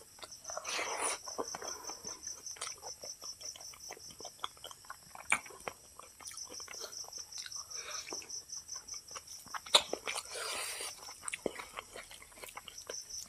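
Fingers mixing rice and dal on a steel plate: wet squelching and many small sharp clicks of fingers against the metal, with chewing. The sharpest click comes near ten seconds in.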